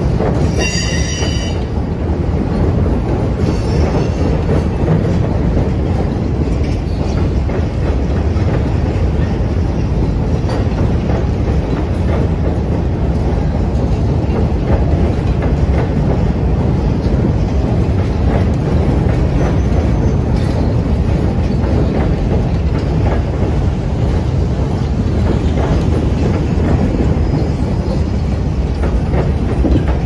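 Freight cars rolling across a steel girder railway bridge: a steady, heavy rumble of wheels on rail, with a brief high wheel squeal about a second in and a fainter squeal a few seconds later.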